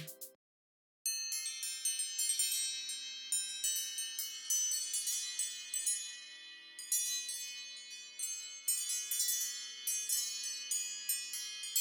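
An iPhone ringtone from the iOS 14 built-in set: quick high chime-like notes that ring over one another. It starts about a second in, after a brief silence that cuts off the previous tone.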